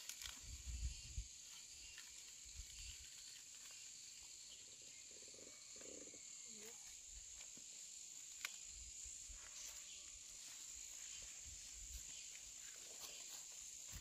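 Faint, steady, high-pitched insect drone, with a few soft low thuds near the start and a single sharp click about eight seconds in.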